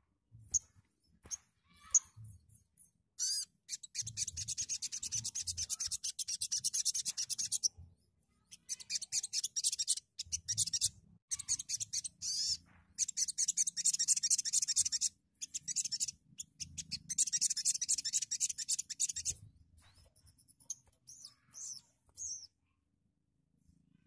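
Caged brown-throated sunbird (sogon) giving long, very rapid, scratchy chattering trills in four bursts of several seconds each, then a few short sharp calls near the end.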